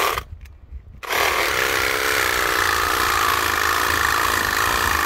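Cordless power saw cutting through woody roselle hibiscus stalks at ground level. It stops just after the start, then starts again about a second in and runs steadily with a high whine.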